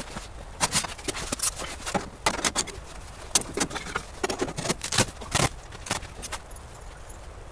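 An irregular series of sharp clicks and knocks, several a second, over a low steady rumble.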